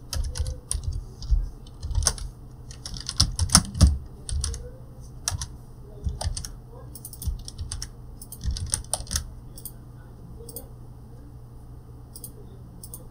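Computer keyboard typing in quick runs of keystrokes, thinning out after about nine seconds to a few scattered clicks near the end.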